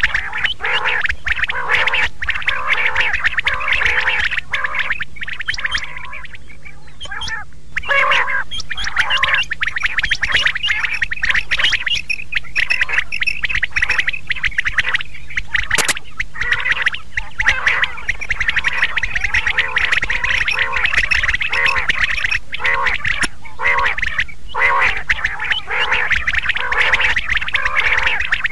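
Quails calling: a dense run of quick, repeated chattering calls, with a short lull about six seconds in.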